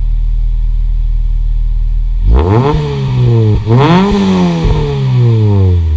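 1997 Acura Integra GSR's four-cylinder VTEC engine idling through a Tanabe Medallion aftermarket exhaust, then revved twice, a bit over two seconds in and again about a second later, each rev climbing quickly and falling back slowly toward idle.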